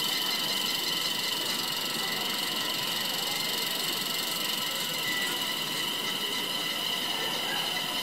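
Cicadas in a continuous chorus: a steady, shrill, high-pitched drone that does not break or change.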